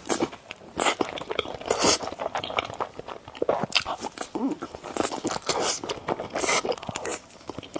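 Close-miked eating sounds: a person biting and chewing food, with crunchy bites coming irregularly about once a second.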